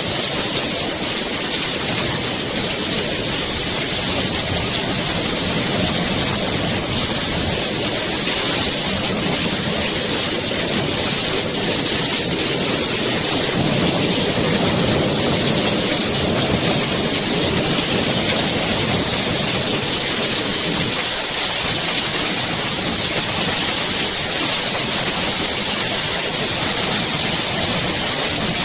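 Steady heavy rain falling, a dense even hiss that stays constant throughout.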